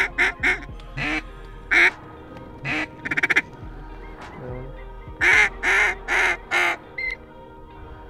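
Duck quacking: several single loud quacks, a quick run of short ones a little after three seconds, then four loud quacks in a row about five seconds in.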